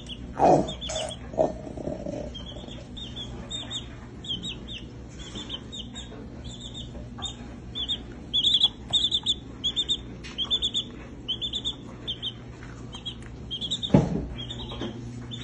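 Baby chick peeping: a long series of short, high chirps, coming in quick runs about eight to eleven seconds in. A louder, lower, falling sound comes about half a second in and again near the end.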